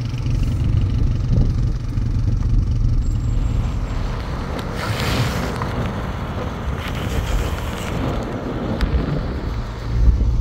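Vehicle engine and tyres on a rough dirt road, heard from inside the cabin: a steady low rumble, with a louder rushing noise for about a second halfway through.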